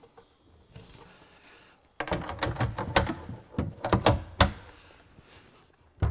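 A wooden cabinet door being rehung: a quick run of clicks and knocks from about two seconds in as its metal hinges are fitted to the cabinet, ending in one sharp click, then a single knock as the door is pushed shut near the end.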